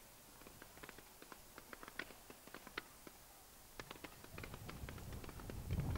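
Fireworks crackling: scattered, irregular faint pops and snaps. About four seconds in, a low rumble starts to build as a new volley of sparking comets goes up.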